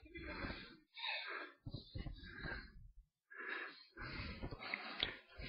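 A person's quiet, breathy puffs of breath close to the microphone, in short bursts with brief silences between them.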